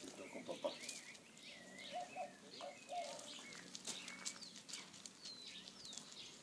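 Faint chirping of small birds: short curling calls repeated over and over, with a short run of four lower notes about two to three seconds in.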